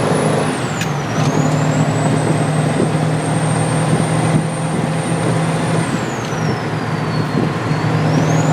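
Ford Power Stroke diesel truck driving, its turbo with a polished housing whistling high over the steady drone of the diesel engine. The whistle dips in pitch about a second in, climbs back and holds, then falls again around seven seconds in and rises near the end.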